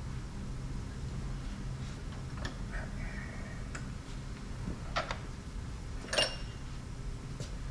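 Scattered metallic clicks and clinks of a reusable hydraulic hose end fitting being twisted onto the hose in a bench vise. A short squeak comes about three seconds in, and the loudest is a ringing metal clink about six seconds in, over a steady low hum.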